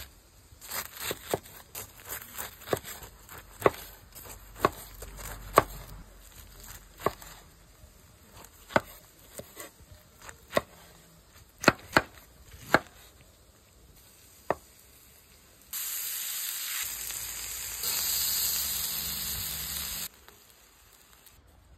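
A knife chopping through a charred, ember-roasted pineapple onto a wooden cutting board: sharp, irregular knocks for about fifteen seconds. Then pineapple slices and meat sizzle steadily on a hot griddle plate, starting and stopping abruptly.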